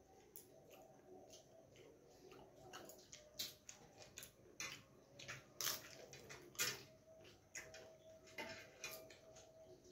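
A hand eating from a stainless steel thali plate: irregular small clicks, scrapes and crackles of fingers and food against the metal, a few of them sharper in the middle.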